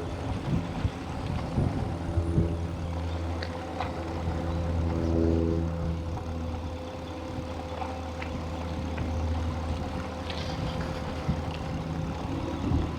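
Steady low motor hum with a steady higher tone above it, swelling briefly about five seconds in, with scattered light clicks and rattles.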